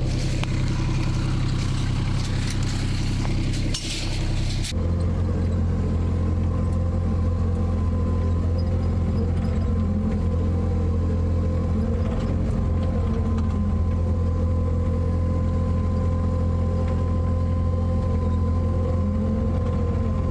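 An engine running steadily with a constant low hum. A little under five seconds in, the outdoor hiss drops away and the engine's hum becomes steadier and more prominent.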